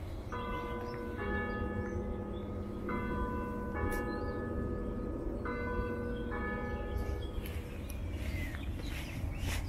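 Two bells of different pitch struck in turn, three pairs of strokes about two and a half seconds apart, each stroke left to ring on, with a steady low rumble underneath.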